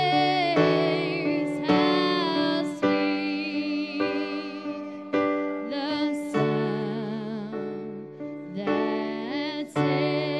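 Gospel-style church music: held keyboard chords that change every second or so, with a voice singing long notes with vibrato over them.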